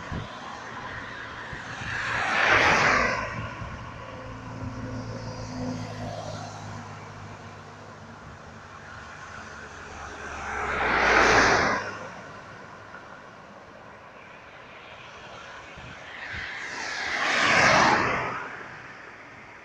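Cars passing by on a highway, three separate pass-bys of tyre and engine noise. Each swells up and fades away, about two seconds in, about eleven seconds in and near the end.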